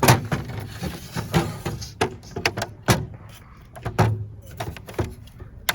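Irregular knocks, clicks and rattles of camping gear being handled and packed, with a few heavier thuds.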